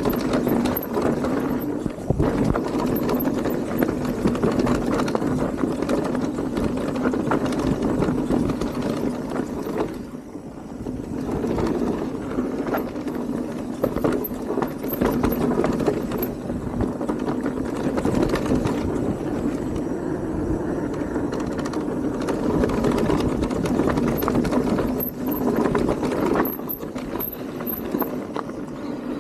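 Radon DEFT 10 e-mountain bike riding down a dirt trail: tyres rolling and the bike rattling and knocking over bumps in quick succession, briefly quieter about ten seconds in.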